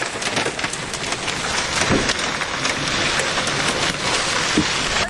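Large hailstones hammering a vehicle's body and roof in a dense, continuous clatter of rapid impacts, with heavy rain. This is giant, baseball- to softball-sized hail, heavy enough to shatter a window and dent the bodywork.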